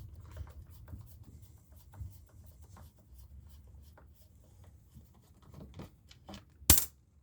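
Light clicks and scrapes of hands and tools working on a chainsaw's plastic housing during disassembly, with one sharp, loud knock near the end.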